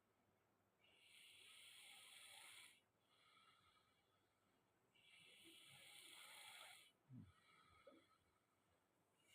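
A sleeping man snoring faintly with slow, rasping, hissy breaths, a louder phase alternating with a weaker one about every four seconds. A short low sound stands out about seven seconds in.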